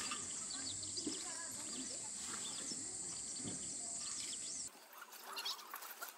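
Outdoor ambience: scattered bird chirps over a steady high-pitched hiss and a faint low rumble. About three-quarters of the way in the sound cuts abruptly to a quieter stretch of light, scattered ticks and chirps.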